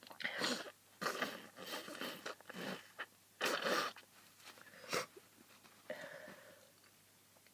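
A person with a cold taking a series of short, noisy breaths and sniffs, about seven of them spread over several seconds.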